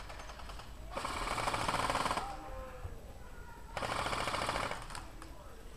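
Airsoft electric rifles firing two full-auto bursts of about a second each, a rapid clatter of shots.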